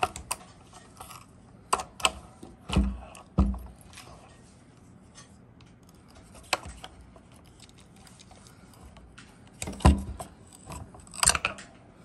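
Adjustable wrench clicking and knocking on the metal of an AR-10 lower receiver as the shear-head bolt of a Mean Arms MA Lock magazine lock is tightened. The sharp clicks and duller knocks come at uneven intervals, and the loudest comes about ten seconds in. In the second half the bolt's head shears off, which permanently fixes the magazine in place.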